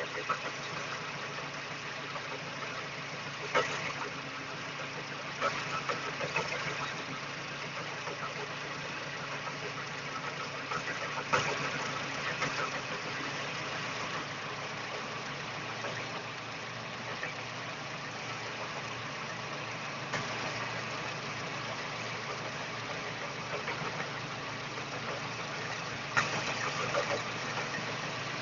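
Daewoo Espero 2.0-litre four-cylinder engine idling steadily. Short sharp knocks sound now and then at irregular intervals of a few seconds: an extraneous knock inside the engine.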